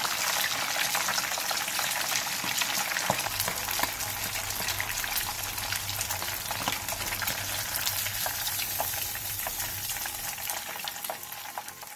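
Breaded duck cutlet frying in hot oil in a frying pan during its second fry: a steady crackling sizzle full of small pops, fading near the end.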